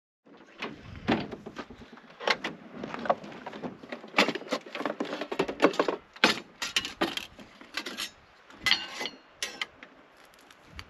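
Camp kitchen gear being handled on a pickup's tailgate: a metal canister, cups and utensils picked up and set down in an irregular run of sharp clinks, clatters and knocks.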